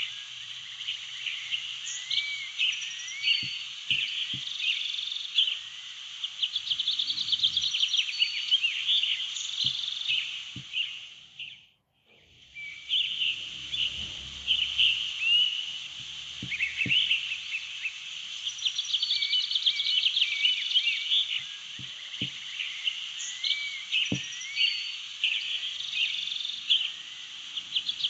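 Nature ambience of many birds chirping and twittering together, laid over the video as a background track. It fades out and back in about twelve seconds in.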